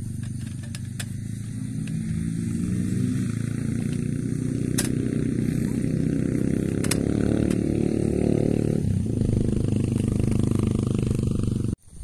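An engine running steadily close by, growing louder about two seconds in and cutting off suddenly near the end, with a few sharp clicks over it.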